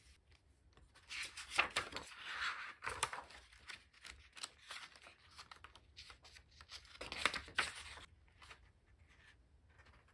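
Paper diary pages being handled and turned, with two stretches of rustling: one about a second in lasting a couple of seconds, and a shorter one about seven seconds in. Small paper clicks and scuffs fall between them.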